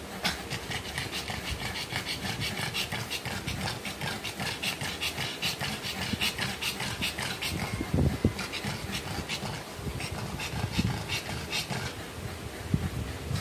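Pug bitch in labour panting fast and hard, an even run of quick breaths, with a dull knock about eight seconds in.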